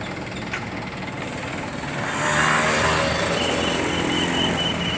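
Small bus engine running on the road, getting louder about two seconds in, with a faint steady high tone over it near the end.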